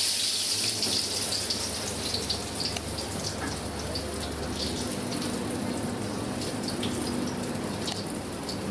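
Corn kernels hissing and rustling in a large iron kadai as they are tossed and sifted through a wire-mesh sieve, a steady gritty rush with scattered light clicks.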